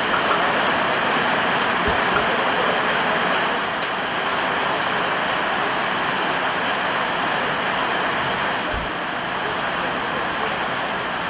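Steady rushing background noise at a football ground, with a faint murmur of voices in it.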